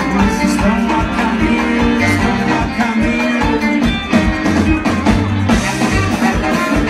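Live rock band playing: electric guitars, bass, drums and a saxophone section, with a steady drum beat.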